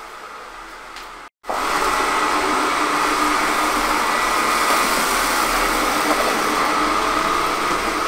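Cecotec Conga 1290 robot vacuum running, a steady whirring hum of its suction fan and brushes as it sweeps scattered rice off a wooden floor. After a brief break about a second and a half in, it comes back much louder and closer.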